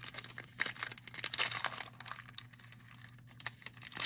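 Plastic wrapper of a baseball card pack crinkling as it is handled and torn open. The crackling is densest in the first two seconds, then thins to a few scattered crackles.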